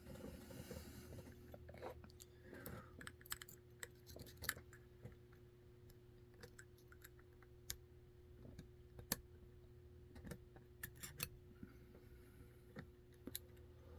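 Faint, scattered small metal clicks and taps from handling a deadbolt lock cylinder and its tiny pins and springs during repinning, with some rustling in the first few seconds.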